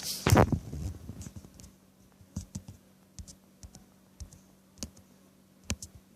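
Handling noise: a loud bump near the start, then scattered light clicks and taps, with a faint steady hum underneath.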